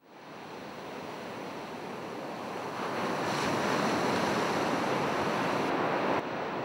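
Ocean waves washing on a shore, fading in from silence and building over a few seconds to a steady wash, dropping a little near the end.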